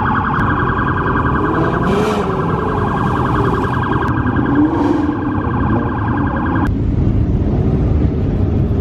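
A rapidly pulsing electronic siren tone, steady in pitch, sounds over the rumble of car engines and stops abruptly about seven seconds in. A car engine revs up twice along the way, about two and five seconds in.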